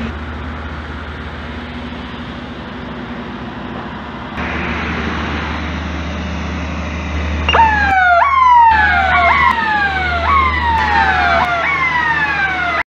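H2S gas alarm siren sounding in quick, repeated falling sweeps, starting a little past halfway, over a steady low rumble. It is the signal for all personnel to put on breathing apparatus.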